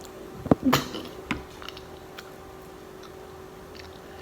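Eating sounds at a table: a sharp knock about half a second in, a short rustle-like burst just after, then a few faint clicks, over a faint steady hum.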